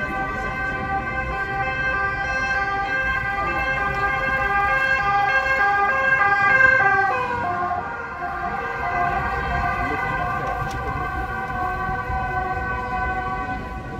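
Emergency vehicle siren sounding steadily as it passes. It is loudest about seven seconds in, where its pitch drops, then fades slightly.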